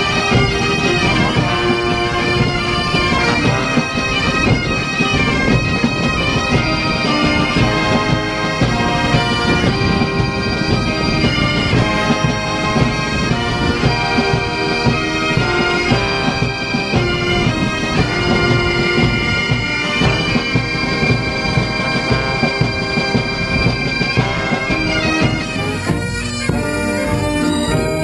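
Highland bagpipes of a military pipes and drums band playing a tune as massed band music, with held drone tones, drum strokes and military brass band instruments.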